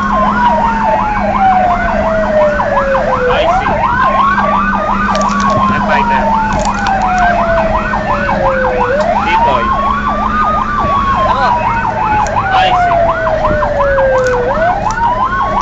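Fire truck sirens heard from inside the cab while responding: a slow wail that rises quickly and then falls slowly, about every five and a half seconds, layered over a fast yelp, with a steady low hum beneath.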